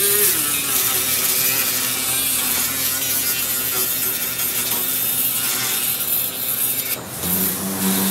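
Small cordless power tool spinning up, then running steadily as it sands rust off the truck's sheet-metal cowl, a whine over a gritty hiss. Its pitch drops about seven seconds in.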